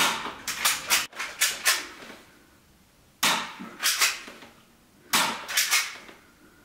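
Airsoft replica Walther P22 pistol firing, sharp pops in quick runs: about six shots in the first two seconds, three more a little after three seconds in, then four more near the end.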